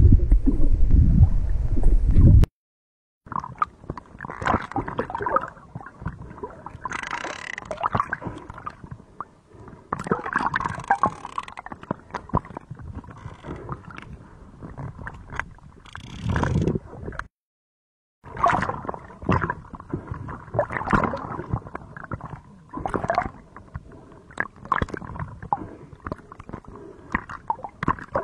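Underwater water noise around an entangled sperm whale: gurgling and bubbling with many scattered clicks and crackles and several louder bursts of rushing bubbles. It opens with a loud low rumble that cuts off suddenly about two seconds in.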